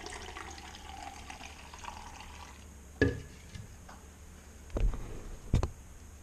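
Thick green juice pouring from a plastic pitcher into a glass, gurgling and rising slightly in pitch as the glass fills, for about two and a half seconds. About three seconds in comes a sharp knock as the pitcher is set down on the granite countertop, then two dull thumps near the end.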